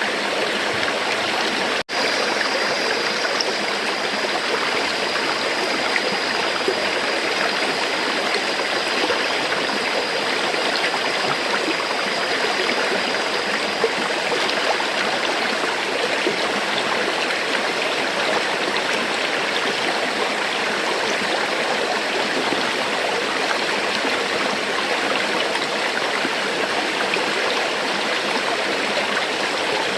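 Flowing river water rushing steadily, with a split-second dropout about two seconds in.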